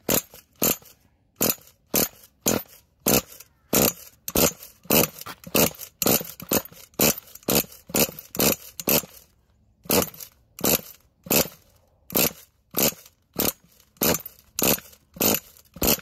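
Nitro RC truggy engine (Losi 8) being cranked over and over by its starter without firing: a run of short rasping strokes, about two a second, with a brief pause partway through.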